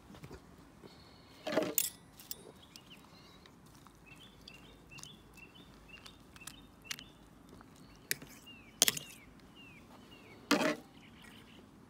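Metal fork clinking and scraping against a steel cooking pot as broth is stirred, a few sharp knocks and scrapes, the loudest about a second and a half in and near the end. A small bird's repeated chirping sounds in the middle.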